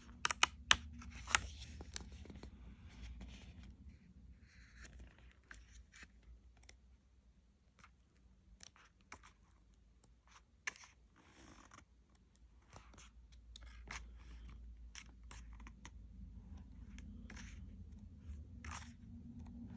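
Pages of a hardcover art book being turned and handled: scattered paper rustles and small clicks, with a few sharper ones in the first second or so.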